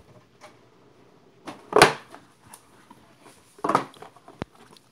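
A small cardboard game box being handled and opened: two short scraping rustles about two seconds apart, then a sharp click near the end.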